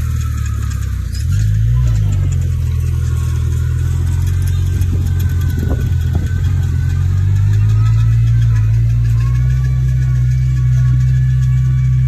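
Komatsu bulldozer's diesel engine running steadily, its pitch dipping and rising briefly about a second in, with a few knocks around the middle.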